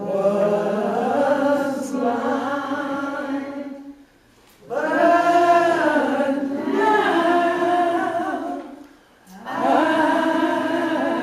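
A group of voices singing a slow hymn in long held phrases. There are three phrases, with short breaks for breath about four and nine seconds in.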